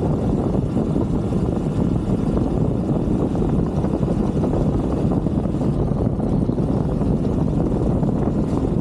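Steady, loud rumble of a 125cc Brixton motorbike being ridden, engine noise mixed with wind buffeting the onboard camera's microphone.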